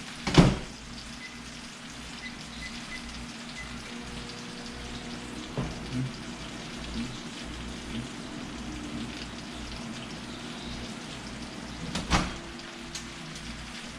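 A microwave oven warming a bun: the door knocks shut, a few faint keypad beeps follow, and the oven runs with a low hum for several seconds before the door is knocked open about twelve seconds in. A steady sizzle of frying food runs underneath.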